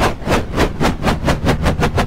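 Helicopter starting up: a rhythmic rotor chop over a low engine drone, the beats speeding up steadily, about four a second, as the rotor spins up.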